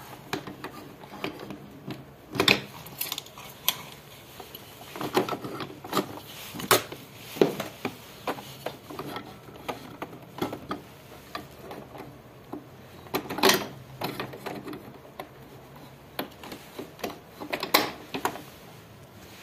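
Scattered clicks, taps and rubbing of metal and plastic parts being handled by gloved hands as a new shaft seal is fitted on a washing machine's spin-dryer motor assembly. Half a dozen knocks stand out among the quieter handling noise.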